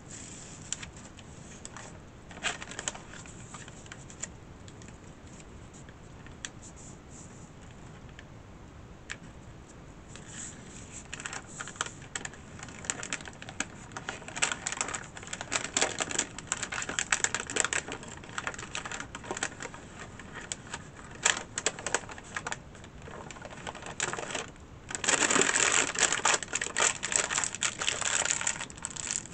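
Plastic film being peeled slowly off the back of Xyron adhesive, making a crackle of small ticks and clicks. It is sparse at first, gets busier about ten seconds in, and is densest near the end.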